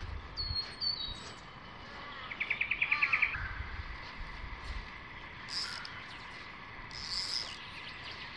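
Wild birds calling: a couple of high whistled notes, then a fast run of about ten notes a little over two seconds in, which is the loudest, and a few short high calls later on. A faint steady insect tone runs underneath.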